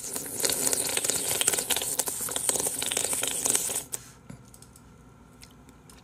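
Close-miked mouth noises of someone sucking and biting on an ice cream bar: a dense, loud crackle of wet clicks for about four seconds that stops abruptly.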